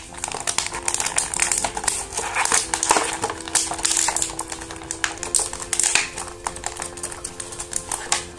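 Clear plastic blister tray crinkling and crackling in irregular clicks as an action figure is pried out of it; the blister is a tight fit.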